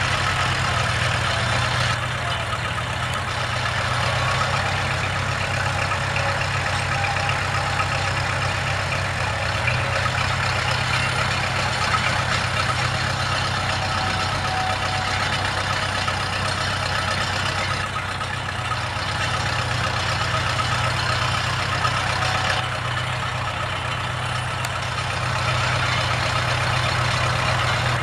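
Kubota L345 tractor's V1501 four-cylinder diesel engine running at a steady, even speed as the tractor drives slowly.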